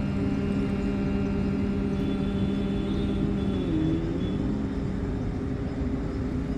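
Bhramari (bee breath) pranayama: a long, steady, held nasal hum that bends in pitch and trails off about three and a half seconds in, over a constant low rumble.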